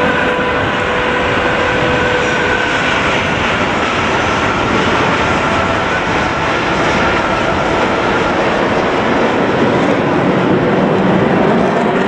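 A formation of Aermacchi MB-339 jet trainers, each with a single Rolls-Royce Viper turbojet, flying past as a loud, steady rushing jet noise. A few faint whining tones fade out in the first few seconds, and the noise swells slightly near the end.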